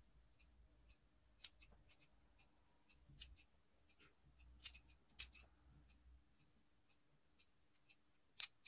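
Scissors snipping the green bases off dandelion flower heads: faint, sharp snips about every second or so, irregularly spaced.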